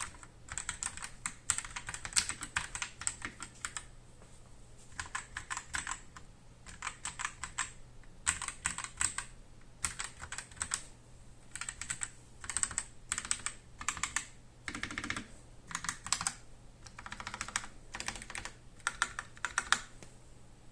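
Typing on a CIY X77 tenkeyless mechanical keyboard with linear CIY Red switches: quick runs of key presses in bursts of a second or two, broken by short pauses, with one deeper knock about three-quarters of the way through.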